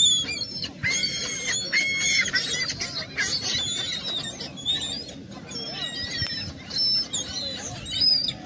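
A flock of seagulls calling, many high calls overlapping one another, densest in the first few seconds and thinning out after.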